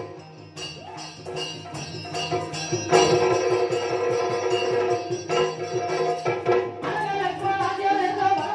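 Yakshagana stage music: drum strokes and jingling hand cymbals over a steady held drone, accompanying a dance. It is softer at first and comes in loudly about three seconds in.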